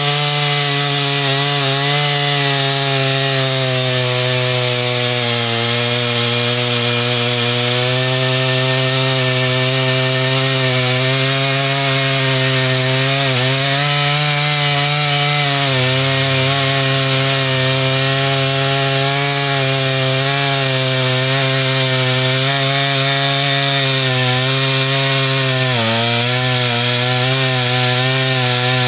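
Husqvarna 440e two-stroke chainsaw running at full throttle while cutting through a log. The engine note holds steady, sagging briefly a few times as the chain loads up in the wood.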